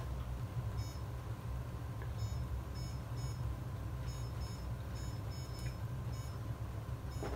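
Ultrasound machine beeping as its console controls are worked during a scan: a dozen or so short, high electronic beeps at uneven spacing, clustered between about one and six and a half seconds in. A steady low hum runs underneath.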